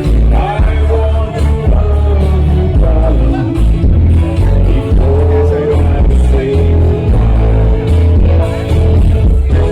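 Loud amplified music with a sung vocal and a heavy, pulsing bass line.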